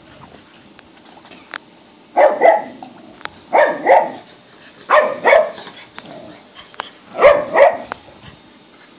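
Dog barking in four bouts of two quick barks each, starting about two seconds in, with short pauses between bouts.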